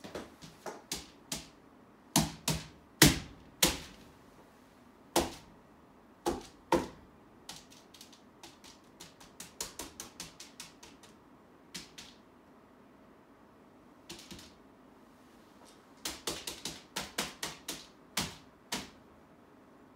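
Irregular sharp taps and clicks of art materials being handled and pressed against a paper-covered wall. Some come singly and some in quick runs, with a short pause just past the middle.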